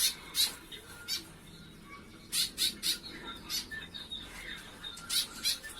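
Young sooty-headed bulbuls calling: short, sharp, high chirps in small clusters, two at the start, three in quick succession about two and a half seconds in, and two more near the end.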